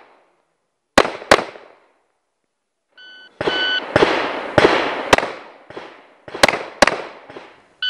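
Handgun shots at an action pistol match, each followed by a short echo: two quick shots about a second in, a short electronic shot-timer beep midway, then a fast string of six or so shots.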